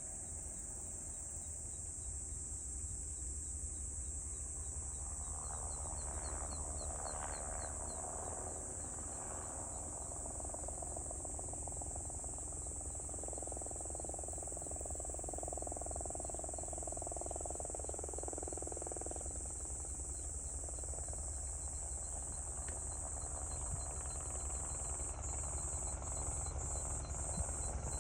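Steady, high-pitched insect chorus, with a low steady rumble underneath; near the end the insect sound begins to pulse rhythmically.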